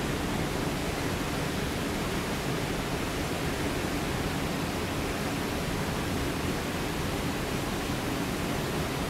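Steady, even rushing of a forest creek's flowing water, with no breaks or separate sounds.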